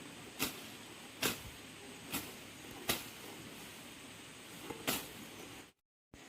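A series of sharp knocks, five of them roughly a second apart, over a steady hiss. The sound drops out briefly near the end.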